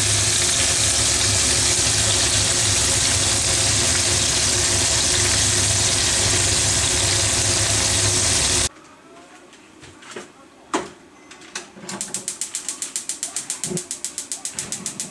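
Food deep-frying in oil in a frying pan: a steady loud sizzle that cuts off suddenly about nine seconds in. After a sharp click, a fast, even run of ticks, about seven a second, from a gas stove's igniter.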